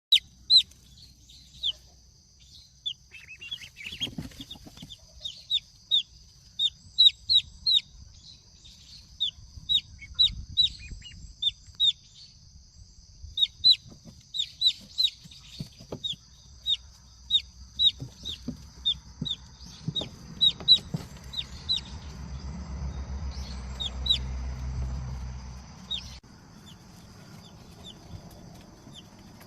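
Baby fowl peeping: a long run of short, high, downward-sliding peeps, one or two a second.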